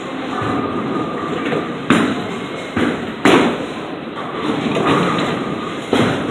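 Bowling alley din: a steady rumble of balls rolling down wooden lanes, broken by sharp crashes and thuds, the loudest about three seconds in, with others about two and six seconds in.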